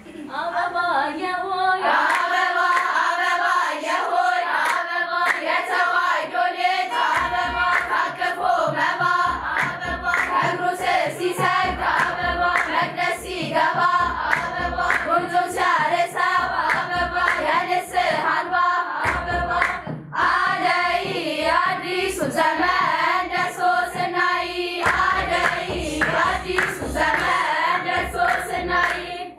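A girls' choir singing an Ethiopian Orthodox hymn (mezmur) in unison, with steady rhythmic hand clapping. A low kebero drum beat joins about seven seconds in.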